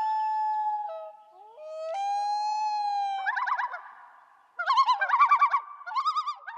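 Common loon calling: long wailing notes that glide up and then hold steady, then from about three seconds in, rapid warbling tremolo calls.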